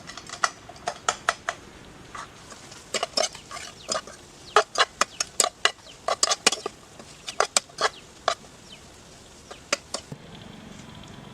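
A metal spatula clinking and tapping against a cooking pan in quick, irregular runs of sharp strikes as the pan's contents are stirred.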